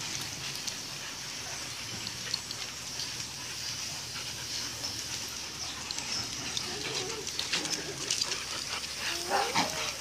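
Several dogs playing together, with short rising-and-falling whines about seven seconds in and again near the end, over scattered scuffs and clicks of paws on gravel.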